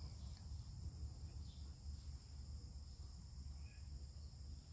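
Steady outdoor chorus of insects: a continuous high-pitched trill that does not change, over a low, constant rumble.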